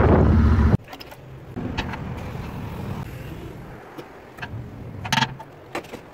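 Wind rushing over the microphone on a moving motorcycle, cut off sharply under a second in. After that a gas-pump nozzle runs fuel into the motorcycle's tank with a low, steady rush, then a few sharp clicks and knocks, the loudest about five seconds in.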